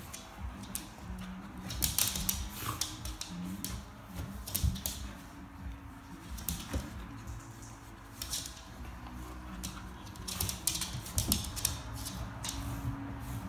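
A Keeshond chewing and pawing a plush tiger toy: irregular bursts of rapid clicking and scratching, with its claws tapping the hard floor.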